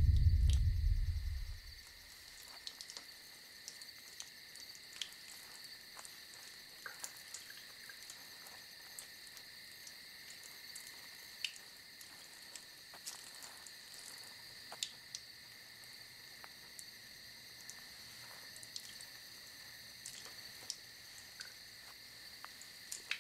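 Crickets chirping steadily in the night, with faint scattered clicks and rustles. A deep low rumble fades out over the first second or so.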